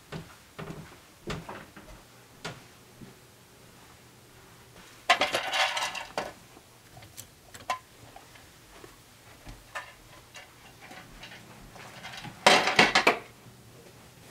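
Two bursts of clattering, each about a second long, about five seconds in and again near the end, as thread spools are handled on a spool rack, with scattered light knocks and footsteps between.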